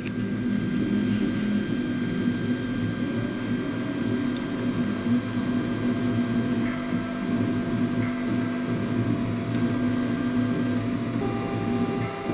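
A 3D printer running: a steady mechanical hum with thin whines from its stepper motors. The set of whine tones changes about eleven seconds in, as the motors change speed.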